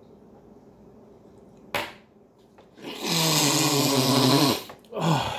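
A man groaning long and loud through a full, closed mouth while chewing, starting about three seconds in, then a shorter falling groan; a brief sharp noise comes about two seconds in.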